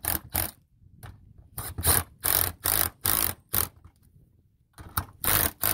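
Cordless drill run in short bursts, about three a second, at the metal awning arm bracket on an RV's side wall, driving a fastener through it into the wall. The bursts pause for about a second midway, then start again.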